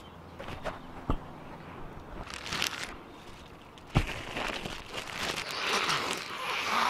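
A small clear plastic bag crinkling and rustling as it is handled. The crinkling swells toward the end and follows a sharp thump about four seconds in. Before the thump there are only light rustles and clicks.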